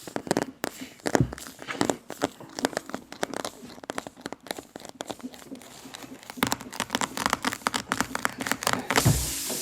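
Tyre reamer (rasp tool) worked in and out of a puncture hole in a tyre, making rapid rasping, crunching strokes against the rubber. Near the end comes a steady hiss of air escaping from the enlarged hole.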